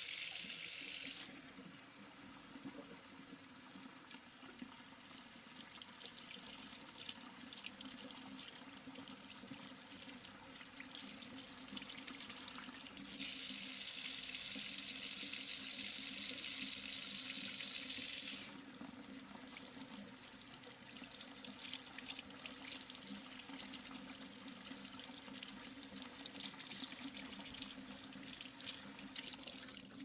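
Water running into a surgical tray: a strong stream that stops about a second in, then a quieter trickle with many small drips. A second strong stream runs from about 13 to 18 seconds, after which the trickle and drips go on.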